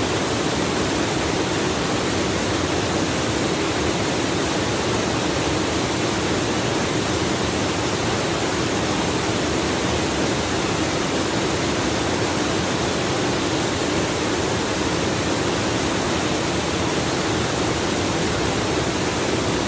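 Waterfall in a gorge: falling water making a steady, unbroken rush.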